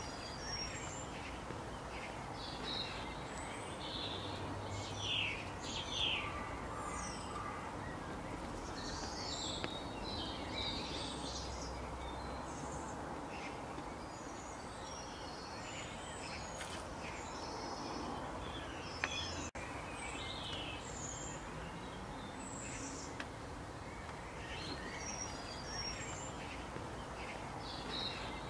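Small songbirds chirping and singing in short phrases throughout, over a steady outdoor background hiss, with one sharp click about two-thirds of the way through.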